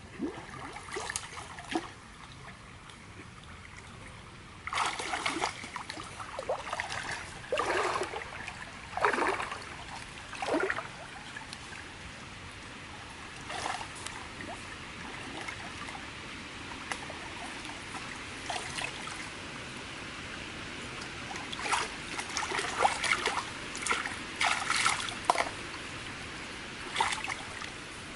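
Stream water splashing and sloshing as a person wades and gropes with his hands in the shallows along the bank, over a steady trickle of flowing water. The splashes come in irregular runs, busiest a few seconds in and again near the end.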